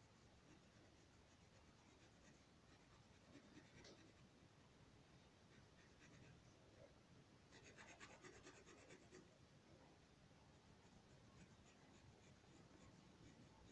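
Faint pencil scratching on paper as a drawing is shaded, with a denser run of quick back-and-forth strokes a little past the middle.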